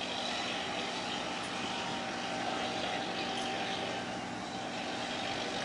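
Crab boat's marine diesel engines running at the dock: a steady drone with a low hum.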